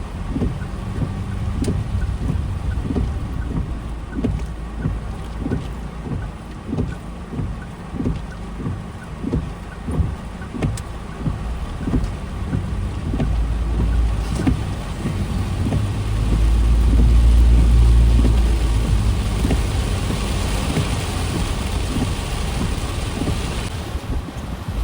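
Strong typhoon wind buffeting the microphone in gusts, a deep rumble with quick repeated thumps. The rumble swells loudest about two-thirds of the way through, then a rushing hiss builds toward the end.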